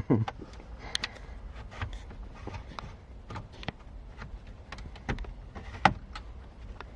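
Scattered light clicks and knocks of hands and radio removal keys working at the factory car radio in the dashboard, one sharper click about six seconds in.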